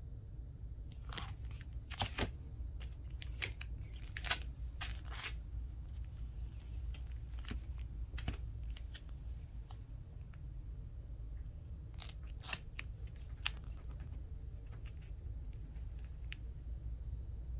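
Plastic comic-book sleeves crinkling and a hard plastic graded-comic case clicking as the comics are handled, in scattered short crackles over a low steady hum.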